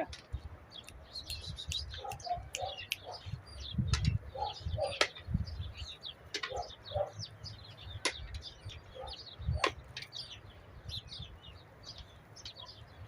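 Small birds chirping busily, with many short, high chirps and a few lower paired calls. Sharp clicks or taps now and then, over a low rumble.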